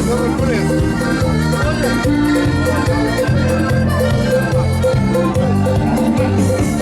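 Accordion-led Portuguese folk dance music: an instrumental passage between sung verses, a lively melody over a steady, repeating bass beat.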